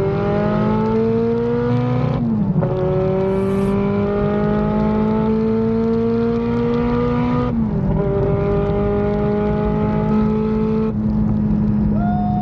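Turbocharged Honda K24 four-cylinder running at full throttle and pulling up through the gears. The engine note climbs steadily, drops at an upshift about two seconds in, climbs again, and drops at a second upshift about seven and a half seconds in.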